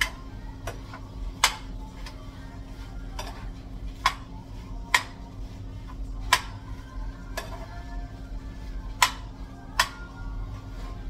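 Metal spoon stirring food in a nonstick skillet, scraping along the pan with sharp clinks against its side at irregular intervals, about once a second.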